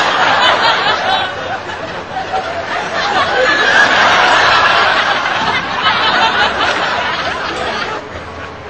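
Audience laughing, swelling to its loudest a few seconds in and dying down near the end.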